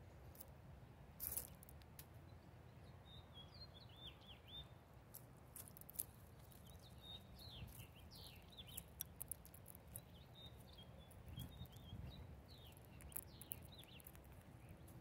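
Faint chirps of small birds in short clusters, with scattered sharp clicks and taps; a louder tap comes about a second in and another at about six seconds.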